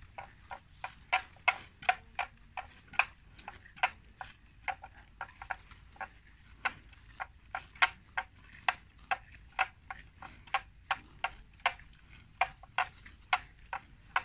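Water buffalo grazing: a quick, irregular series of crisp snaps, about three a second, as the animals tear off mouthfuls of grass.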